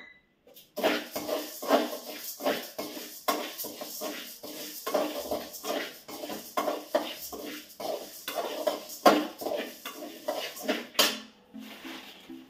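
Metal spatula stirring and scraping mustard seeds being dry-roasted in a metal kadai, in steady strokes about two to three a second. Soft background music starts near the end.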